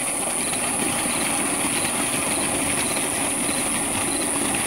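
Water gushing steadily from the outlet pipe of a shallow tube-well pump onto the ground as lotus leaves are rinsed in the stream, with crickets chirping in a constant high band.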